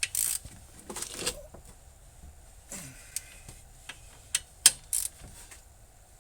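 Hand tools clinking and clattering on metal while the hub assembly bolts are tightened: scattered sharp metallic clicks, the loudest about two-thirds of the way in, with a few short scraping rustles.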